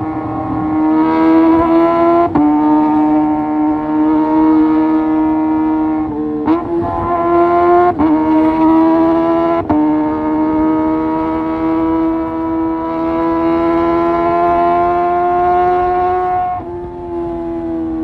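Kawasaki ZX-25R's inline-four engine running loud through a Leo Vince GP Corsa Evo short full-system exhaust while riding: one steady pitched exhaust note that climbs slowly. It breaks off briefly several times, around 2, 8, 10 and 17 seconds in.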